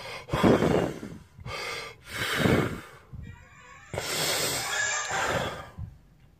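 A man crying hard: three long, gasping sobbing breaths, the last one trailing off near the end.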